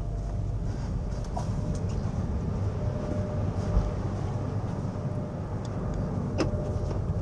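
Steady low rumble inside the upper-deck passenger saloon of an Alstom TGV Duplex carriage, with a faint steady hum and a few light clicks.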